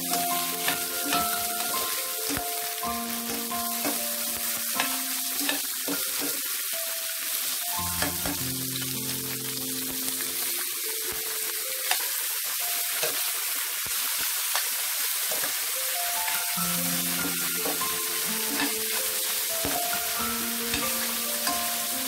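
Beef strips with sliced bell peppers and onions sizzling steadily in a stainless steel pan as they are stir-fried, with light scrapes and clicks of a metal slotted spoon turning them. Soft background music plays underneath.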